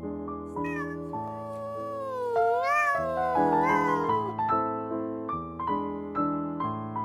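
A domestic cat meowing in long calls that waver up and down in pitch, from about half a second to about four seconds in, over steady piano music.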